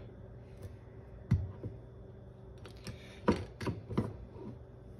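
Plastic pour-spout insert being pushed back into the neck of a glass soy sauce bottle: a handful of sharp plastic clicks and knocks, the loudest about a second in and about three seconds in.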